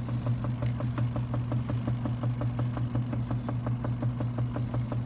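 Zeny portable mini washing machine's spin cycle running: a steady motor hum with a rapid, even knocking, about six knocks a second. The spinner is unbalanced and wobbles, walking around on the floor.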